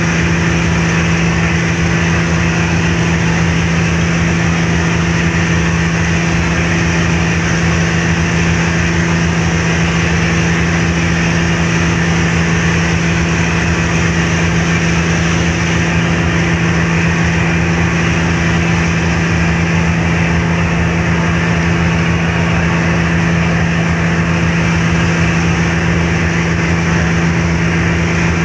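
A car ferry's engine running at a steady cruising pace: a constant low hum with a strong steady tone, under an even rushing noise.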